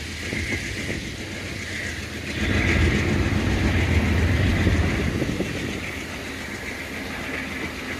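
Amtrak passenger train rolling past on the rails, a steady rumble with wheel hiss that swells a couple of seconds in and eases off again after about five seconds.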